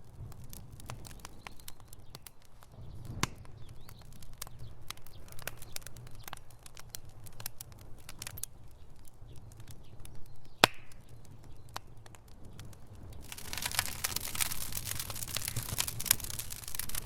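Wood fire in a fireplace crackling: frequent sharp pops and snaps over a low, steady rumble, with one loud pop about ten and a half seconds in. A brighter hiss of flame sets in about thirteen seconds in.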